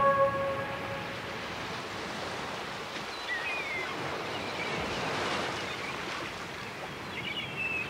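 Recorded ocean surf: a steady wash of waves that swells about five seconds in, after sustained music tones fade out at the start. A few faint, high, wavering calls sound about three seconds in and again near the end.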